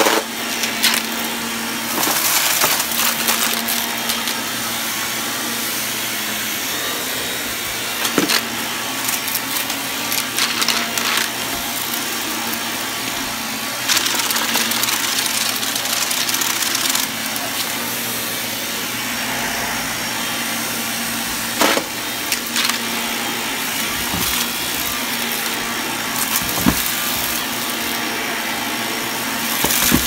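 Shark upright vacuum cleaner running steadily with a hum, pushed back and forth over carpet. The rush swells louder for a couple of stretches, and a few sharp knocks come through.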